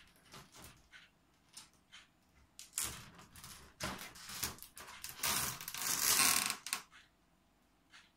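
A cat pawing and clawing at the bottom of a folding accordion door, the door's panels rattling and scraping in short irregular bursts, with the longest and loudest stretch about five to seven seconds in.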